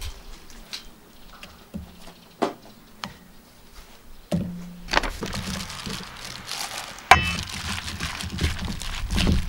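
A few light taps and a knock on a stainless steel mixing bowl of pancake batter, then about seven seconds in a sharp clink followed by the wet, busy squishing of a plastic-gloved hand mixing chopped kimchi into the batter.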